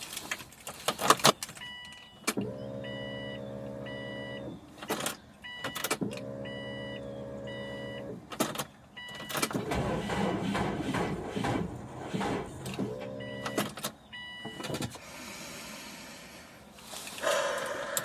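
Three short tries at starting a 2002 Subaru WRX: each time an electric whir rises and holds for about two seconds and the engine does not catch, while a warning chime beeps. The owner puts the failed start down to a drained battery or possibly a starter problem.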